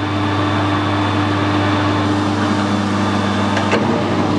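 Metal lathe running with its spindle in reverse, giving a steady motor and gearing hum; its tone shifts slightly near the end.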